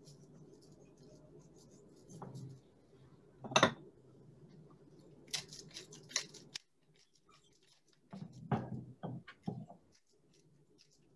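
Hand-held salt and pepper grinder being twisted, giving bursts of quick crunchy clicks: a loud one about three and a half seconds in, then runs of clicks around the middle and again near the end.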